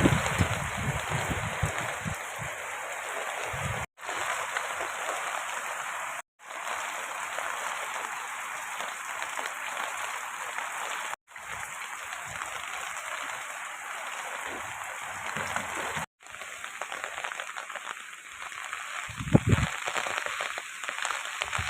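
Steady rain falling, an even hiss that cuts out completely for a moment four times. A few low thumps come near the end.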